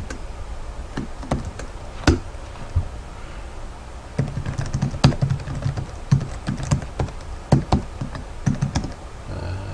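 Computer keyboard typing: a few scattered keystrokes, a short pause, then a quicker run of key presses from about four seconds in.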